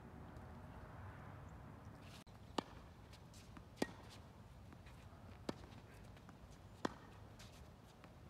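A tennis rally: five sharp pops of a tennis ball struck by rackets and bouncing on the hard court, one every one to one and a half seconds, starting a little over two seconds in. Before that there is only a faint low rumble.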